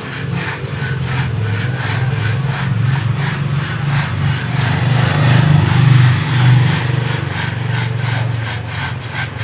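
Two-man manual crosscut saw cutting through mango wood, its teeth rasping in steady, evenly repeated strokes. A low drone runs underneath and swells about halfway through.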